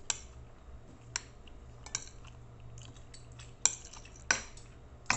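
Spoon and fork clinking and scraping on a plate while eating: about half a dozen sharp clinks spread over several seconds, the loudest near the end, over a low steady hum.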